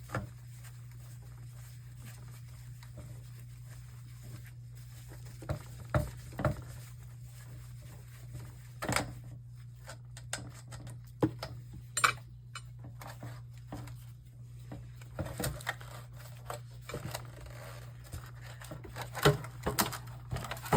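Scattered clicks, taps and rattles of hand tools and plastic and metal parts being handled while a computer monitor is taken apart, over a steady low hum.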